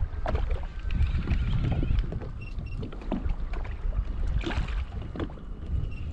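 Wind buffeting the microphone and sea water slapping against a fishing kayak's hull, with scattered small knocks and clicks; louder for the first couple of seconds, then settling.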